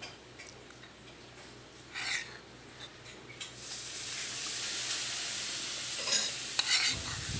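Dog lapping milk from a glass bowl: a few short wet licks and taps against the glass. About halfway through a steady hiss rises and runs on, with a few more short noises.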